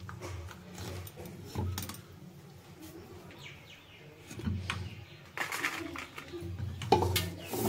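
A metal spoon scraping and clinking against an aluminium pressure cooker and a steel plate as boiled black-eyed peas are scooped out and dropped onto the plate: scattered short clinks and scrapes, the loudest near the end.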